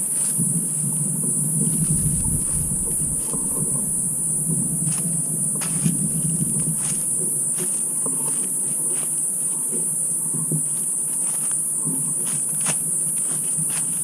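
A steady, shrill insect chorus, pulsing rapidly and evenly throughout, with scattered light clicks and rustles underneath.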